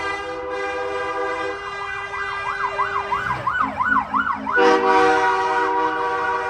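Emergency vehicle air horn held in a long steady blast. It gives way to an electronic siren in a rapid yelp, about four swings a second, and the horn blasts again over the siren about four and a half seconds in.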